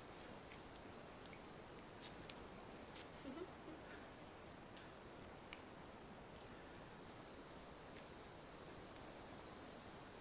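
Steady, high-pitched chorus of forest insects droning without a break.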